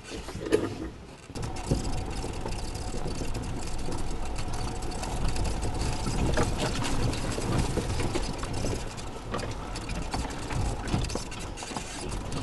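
Tracker EV electric UTV setting off about a second and a half in and driving over a rough dirt trail: a faint steady electric-motor whine under low rumble, with frequent rattles and knocks from the body and load bed over the bumps.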